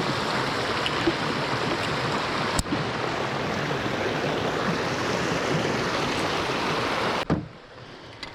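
Creek water rushing steadily, with one sharp click about two and a half seconds in; the rushing drops off abruptly near the end.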